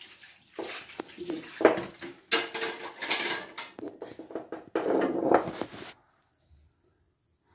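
Metal cookware (steel pots and an aluminium pot lid) clinking, knocking and scraping as it is handled and scrubbed during hand dishwashing. The clatter stops suddenly about six seconds in.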